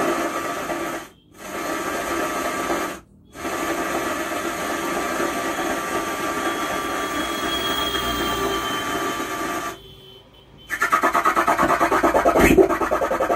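Faulty 12-volt amplifier putting out a harsh, rasping noise through its speaker with a faint steady tone in it, instead of clean sound. The noise drops out briefly twice, fades for a moment, then comes back as a rapid pulsing rasp.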